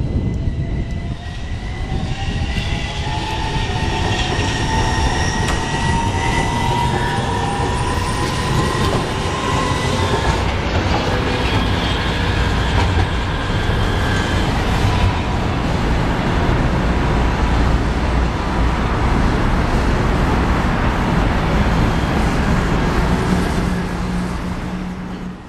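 AnsaldoBreda Sirio low-floor tram running on street track, a steady rolling rumble of wheels on rail with whining tones that rise slowly in pitch over the first ten seconds. The sound fades out near the end.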